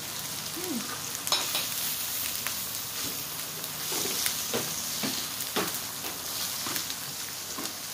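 Food sizzling in oil on an electric grill plate: a steady hiss, with scattered clicks of utensils against the plate.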